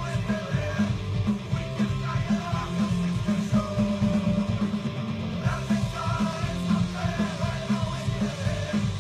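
Punk rock music with a driving, evenly pulsed bass line and shouted vocals.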